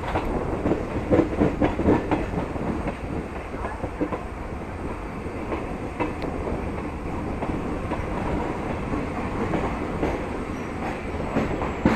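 Nagaland Express passenger train running along the track, heard from on board: a steady rumble and rattle with the wheels clicking over rail joints, busier in the first few seconds.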